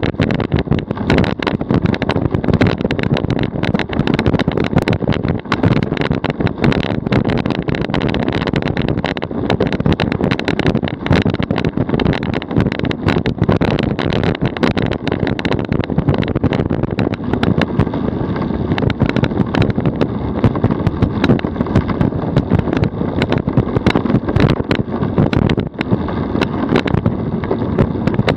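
DF velomobile rolling along a road at about 36 km/h: steady tyre and road noise with wind on the microphone, and a constant run of rattles and knocks carried through the camera mount on its shell.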